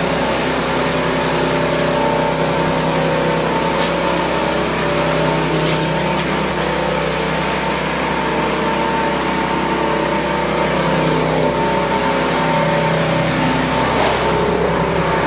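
Small engine running steadily at a constant speed, a continuous mechanical hum with several steady tones.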